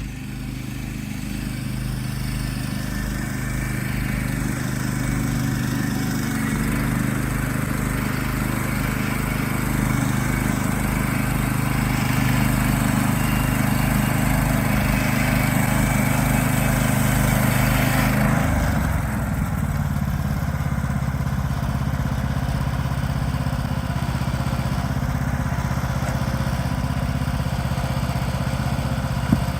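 Gas engine of a Woodland Mills portable sawmill running steadily while the blade saws through white pine, with a hiss of cutting over the engine. About two-thirds of the way through the cutting hiss stops and the engine runs on a little quieter; a single sharp knock sounds near the end.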